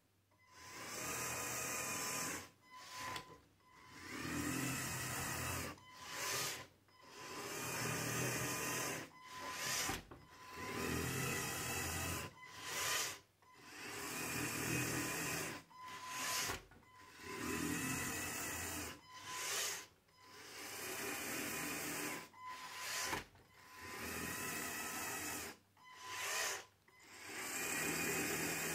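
LEGO Control+ motors and gear trains whirring in repeated bursts a little over a second apart as the biped walks, each burst one tilt-and-step cycle of the legs, with brief dips between.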